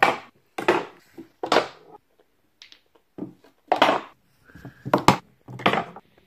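Billiard balls and cue clacking: a series of about eight separate sharp knocks at irregular spacing.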